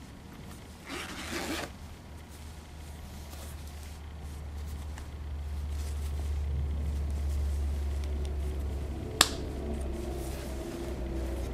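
Hands handling a canvas tote handbag: a short zip-like rasp about a second in, then soft fabric handling over a low rumble, and one sharp click near the end as the bag's top is pressed shut.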